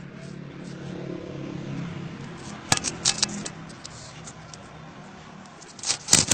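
Sharp clicking and rattling, a cluster about three seconds in and a louder one near the end, over a low steady hum that fades after the first half.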